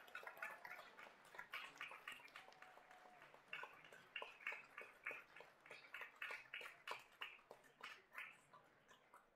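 Near-silent room with faint, irregular clicks, two or three a second.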